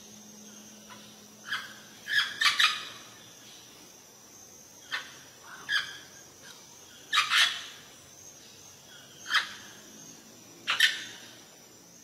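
Amazon parrot giving short, harsh squawking calls, about eight in all, some in quick pairs, spaced irregularly a second or more apart.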